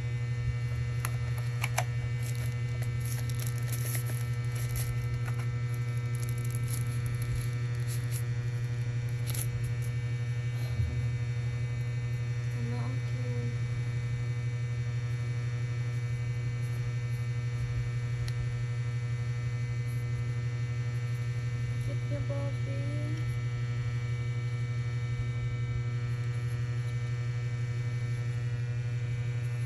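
Steady electrical hum with a strong low tone and many fainter overtones, running at an even level. Faint crackles and clicks come in the first ten seconds, with a single soft thump about eleven seconds in.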